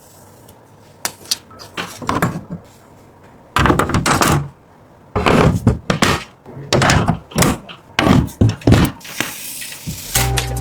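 Computer parts and case panels being handled and fitted: a run of clicks and knocks, then longer scraping thuds through the middle. Electronic music comes in near the end.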